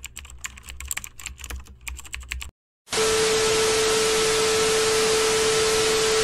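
Rapid keyboard-typing clicks over a low hum. After a brief gap, about three seconds in, loud TV static hiss starts with a single steady test tone under it.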